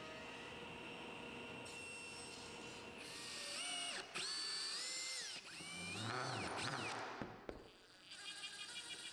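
HiKOKI cordless drill boring into a small plywood block in three short bursts, each spinning up to speed, holding, then winding down. Near the end a Festool cordless impact driver drives a screw into the block with a fast, even rattle of impacts. A steady hum runs for the first few seconds.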